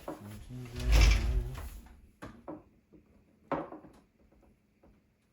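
Hardware being handled inside a computer case: a sliding scrape with a heavy thump about a second in, then a few sharp knocks and clicks of parts being set in place.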